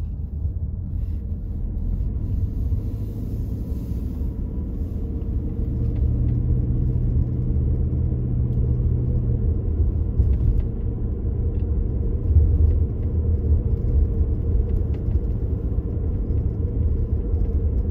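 Car driving, heard from inside the cabin: a steady low rumble of engine and tyres, a little louder from about six seconds in, with a low engine hum standing out for a few seconds around the middle.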